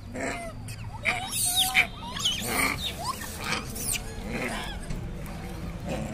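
Rhesus macaques squealing: a quick run of short, high squeaks between about one and four seconds in.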